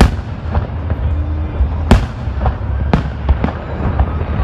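Fireworks going off: a string of sharp bangs at irregular intervals, the loudest at the start and about two seconds in, over a steady low rumble.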